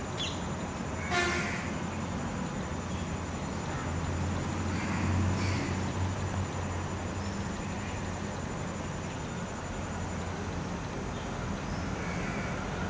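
Steady low background rumble, with a short pitched toot about a second in.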